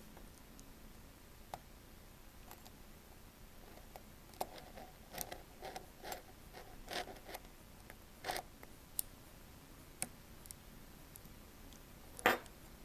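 Faint clicks and scratchy ticks of a small precision screwdriver working a tiny screw into an iPhone 5c's internal bracket, with a run of quick ticks in the middle and a few sharper clicks after it.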